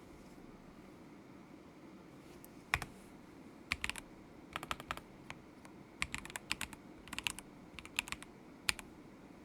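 Mechanical keyboard, a stock KZZI K75 Pro with Moment linear switches, being typed on in short bursts of keystrokes that start about three seconds in.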